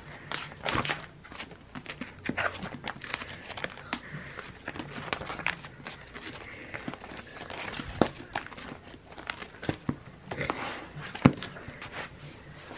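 Clear plastic sleeves and sticker sheets in a ring binder being flipped through and handled: irregular plastic rustling and crinkling with scattered clicks and taps, the sharpest clicks about eight and eleven seconds in.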